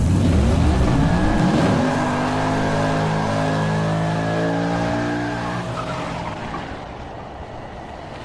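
Car engine revving: its pitch climbs over the first two seconds, then holds steady and slowly fades away.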